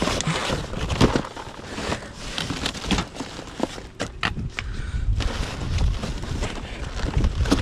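Plastic trash bags and cardboard rustling and crinkling as gloved hands shift them in a dumpster, with scattered short knocks and clunks.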